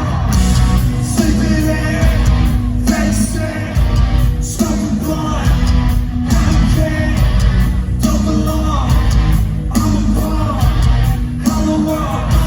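Loud live rock music played through a concert PA, with heavy bass, a regular pulse that drops out briefly every second or two, and a singing or shouting voice over it.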